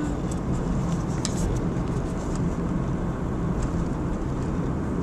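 Steady road and engine rumble heard from inside a moving car's cabin, with a few faint ticks in the first second or so.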